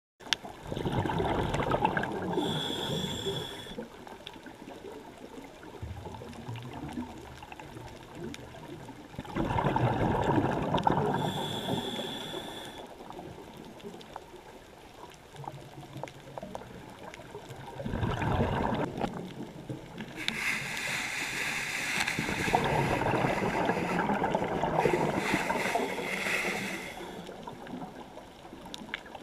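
A scuba diver breathing underwater through a regulator: surges of bubbling a few seconds long, roughly every eight to ten seconds, some with a high hiss.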